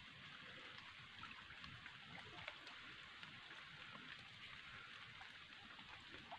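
Faint trickling of shallow muddy water, with small scattered drips and splashes.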